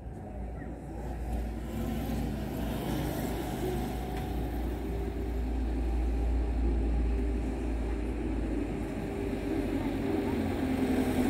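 Motor vehicle engines on a street: a steady low engine rumble that grows louder toward the end as a vehicle approaches.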